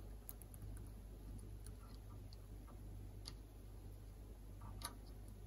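Faint, scattered light clicks and taps, a handful over several seconds, from small antenna parts being handled on a wooden bench, over a low steady hum.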